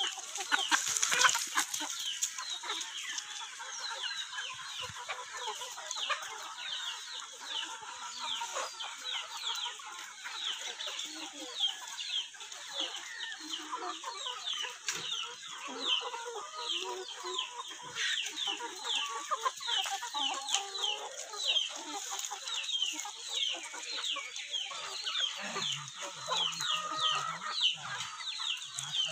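A flock of free-range chickens, hens and roosters, clucking and calling together, with a constant stream of short, high, downward chirps and a steady high hiss behind them.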